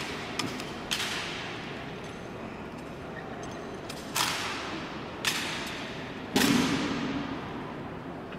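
Honor guard rifle drill: several sharp, echoing strikes of gloved hands slapping and catching rifles mid-spin. The loudest comes near the end with a heavier thud, as the rifles are brought down and grounded together on the hall's stone floor.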